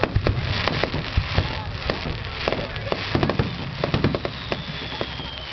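Fireworks display: a dense run of sharp bangs, pops and crackles, several a second and overlapping, with a thin high tone slowly falling in pitch near the end.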